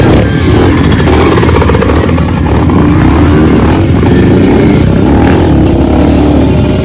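Several dirt bike engines running and revving as the bikes ride off over a dirt track, with the engine pitch rising and falling.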